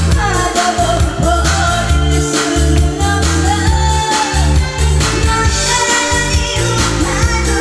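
Pop-style song with a voice singing a melody over a steady drum and bass beat.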